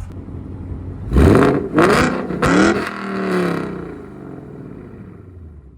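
Ford Mustang GT's 5.0 Coyote V8 through catless Kooks long-tube headers, an H-pipe and the factory active-valve exhaust, revved hard four times in quick succession about a second in. The last rev is the longest and falls back, and the engine settles to a low rumble.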